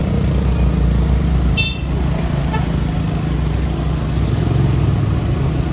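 Steady engine and road noise of a moving vehicle on a road trip, a dense low rumble. About one and a half seconds in there is a brief high-pitched tone.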